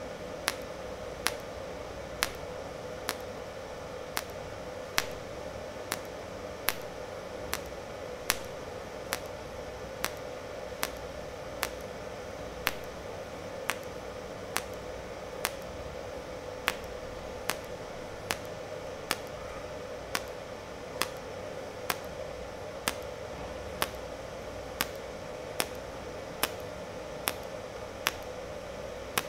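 ANDELI TIG-250 series TIG welder in cold-welding (low-temperature) mode on 1 mm stainless steel. Each short arc pulse gives a sharp click, a little more than once a second in an even rhythm, over a steady hum.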